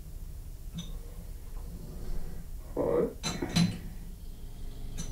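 Metal clinks of a chuck key working the jaws of a four-jaw lathe chuck as a gear is adjusted to run true, with a sharp pair of clicks a little past halfway.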